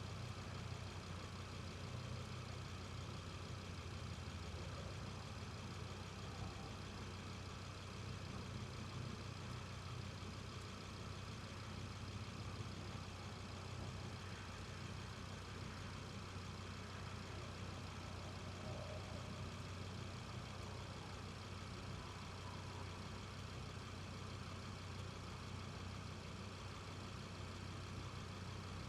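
Audi TT RS's Stage 1-tuned turbocharged five-cylinder engine running at a steady, unchanging pitch with a low drone, with no revving, pops or gear changes.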